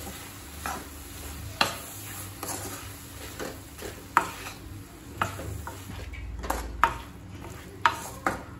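Wooden spatula stirring and turning brinjal and potato pieces in a metal kadai, knocking and scraping against the pan about once a second, over a light sizzle of frying.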